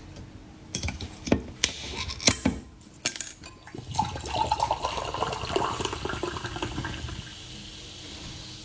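Several sharp clinks and knocks in the first few seconds, then orange juice pouring into a glass for about three seconds, its pitch shifting as the glass fills.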